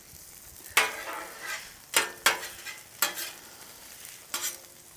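Metal spatula scraping across a Blackstone griddle's steel top, pushing potato crowns through hot oil, with the oil sizzling under them. There are about five sharp scrapes, roughly a second apart.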